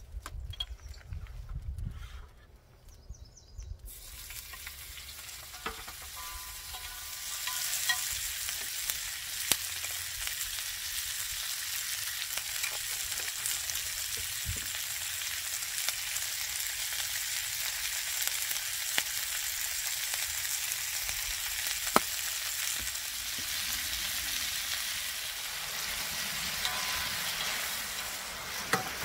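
Chopped peppers and onions sizzling on a round griddle pan over a portable butane gas stove, stirred with wooden spoons, with a few sharp knocks of spoon on pan. The sizzle starts about four seconds in and builds to a steady level by about eight seconds.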